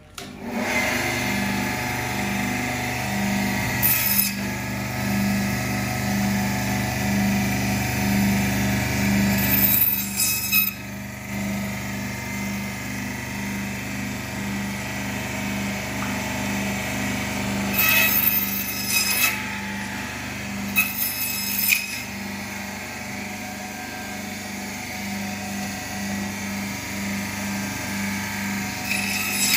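Meat band saw running steadily with a pulsing motor hum, cutting duck pieces into portions. Several short, louder cutting sounds occur as the blade goes through meat and bone.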